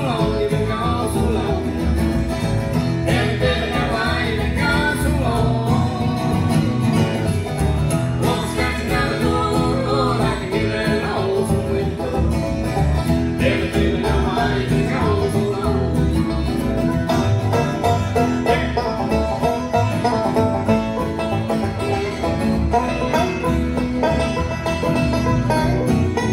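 A bluegrass band playing live, picked up on a phone's microphone: acoustic guitar, upright bass and banjo, with a man singing lead and a woman singing harmony.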